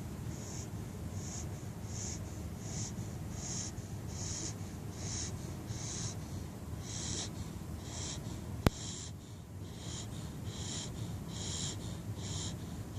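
A sleeping puppy hyper snoring: quick, short snoring breaths, about two a second, over a low steady background. A single sharp click about two-thirds of the way through.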